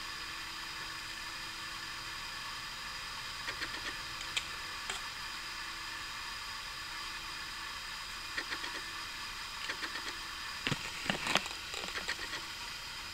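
Steady background hiss with a few faint clicks and light rustles, the loudest of them a little before the end.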